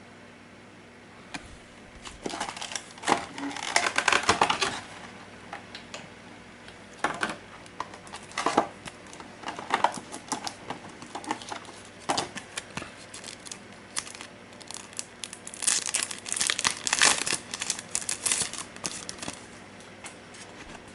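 Plastic packaging crinkling and rustling in irregular bursts as game components are handled, with scattered light clicks.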